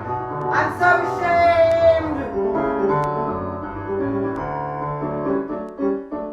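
Piano music playing, with a long held sung note over it in the first two seconds.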